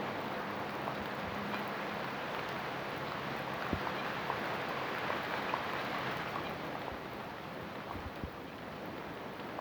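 Steady rain falling, a dense hiss with scattered individual drops ticking and a few soft low thuds, easing slightly about two-thirds of the way through.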